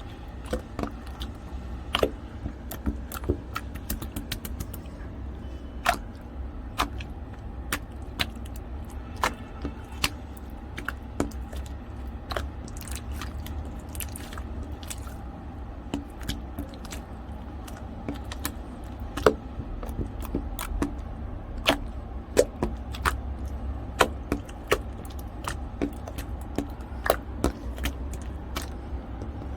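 Snowflake (snow-type) slime being squeezed and worked by hand, giving an irregular run of crisp crackles and small pops over a low steady hum.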